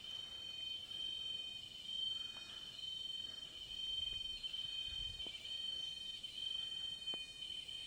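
Rainforest insects, cicadas or crickets, keeping up a continuous high-pitched buzzing drone at one steady pitch. A few faint clicks and soft rustles sound beneath it.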